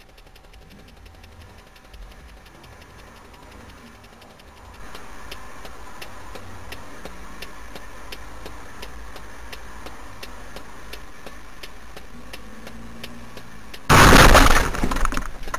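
Road and engine noise from inside a moving car, growing louder about five seconds in, then a sudden, very loud collision impact near the end that lasts about a second and then dies away: a car crash caught on a dash cam.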